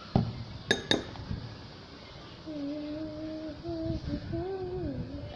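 A dull knock and two sharp clicks from handling things at the table, then a girl humming a few wavering notes for a couple of seconds.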